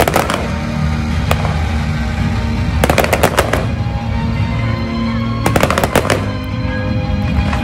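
Aerial fireworks bursting in rapid clusters of sharp bangs, like volleys of gunfire, near the start, about three seconds in and about five and a half seconds in, with a lone bang just after one second. Steady music plays underneath.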